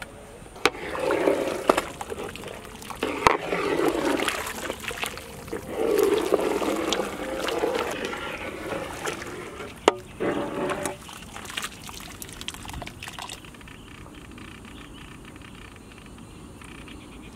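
Mutton soup sloshing as a ladle stirs it in a large metal cooking pot, in uneven surges with a few sharp knocks. The sloshing dies down about two-thirds of the way through, leaving only a faint background.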